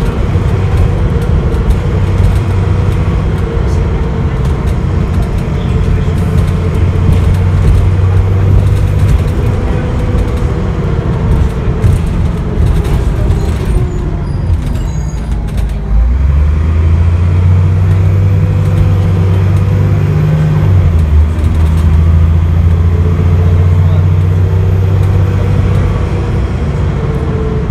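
Dennis Trident double-decker bus's diesel engine, heard from inside the passenger saloon, pulling hard under heavy throttle. About halfway through it eases off for a moment, then is floored again: the note jumps up and climbs for a few seconds, drops at an automatic gear change, and keeps pulling.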